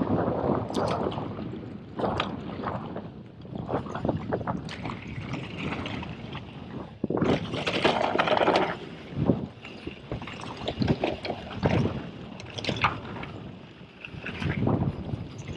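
Orbea Rallon mountain bike descending a rocky gravel trail: the tyres rumble and crunch over loose stones and the bike clatters over bumps. The noise is loudest in a rough stretch about seven to nine seconds in.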